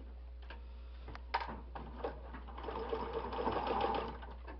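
Electric household sewing machine stitching through cotton towel fabric: after a couple of faint clicks it starts sharply about a second in, runs in a few short spells, then sews steadily for about two seconds and stops shortly before the end.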